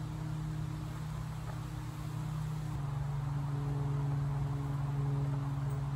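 Steady low mechanical hum, like a motor or engine running, growing a little louder through the middle and easing off near the end.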